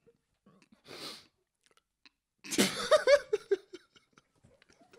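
A man bursting into laughter: a sudden explosive snort, then a few short pulses of laughter, after a quick breathy puff through the nose about a second in.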